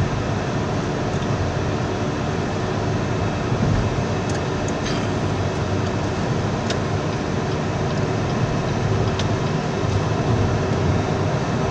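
Car interior noise at highway speed: a steady rumble of tyres on the road and wind, with a few faint clicks about halfway through.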